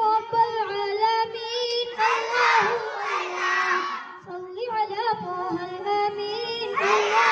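A boy singing a devotional song solo into a microphone, holding long notes with wavering, ornamented turns.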